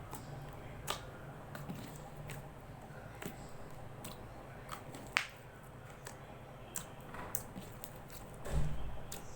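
Slime being squeezed and stretched by hand, giving irregular small wet clicks and pops as air pockets burst, with a low thump near the end.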